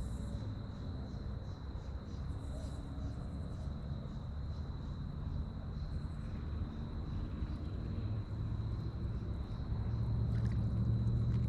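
Evening insects, crickets or katydids, calling: a steady high trill with rhythmic pulses about two or three times a second. Under it runs a low rumble that grows louder over the last few seconds.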